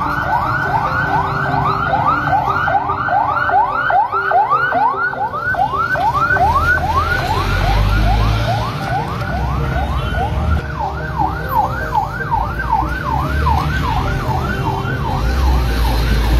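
Ambulance siren wailing in a fast yelp, its pitch sweeping up and down about twice a second. A vehicle engine rumbles low beneath it in the second half.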